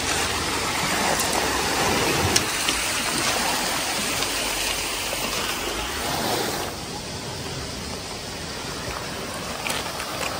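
Small waves washing up on a pebble beach, a steady hiss of surf that gets quieter about two-thirds of the way through. A few faint crunches of footsteps on the pebbles near the end.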